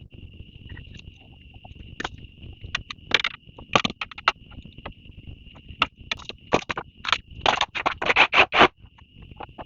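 Irregular sharp knocks and clacks, a few at first and then coming quickly in a cluster in the last couple of seconds, over a steady high thin whine.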